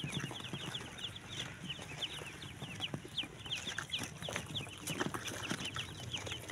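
A brood of ducklings peeping without pause, many short peeps falling in pitch and overlapping into a steady chorus.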